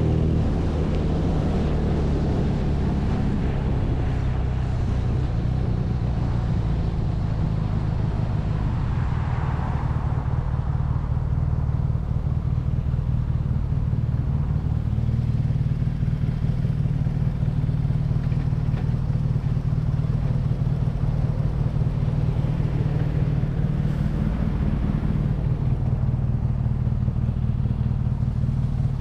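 BMW R nineT's air/oil-cooled flat-twin boxer engine running at a steady, even speed.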